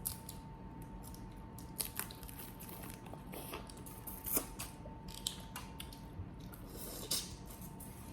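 Boiled crawfish being eaten: shells cracked and pulled apart, with chewing and wet squishing, heard as irregular short cracks and clicks, the loudest about four and seven seconds in. A faint steady hum runs underneath.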